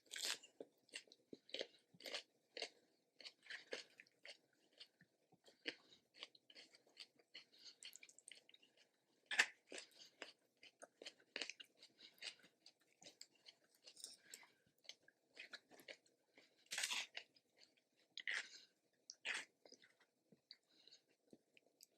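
A person chewing and crunching food, a soft, irregular run of small wet clicks and crunches with a few louder bites scattered through.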